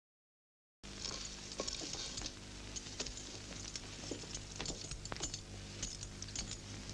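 Total silence for under a second, then steady soundtrack hiss and mains hum with scattered small clicks and taps.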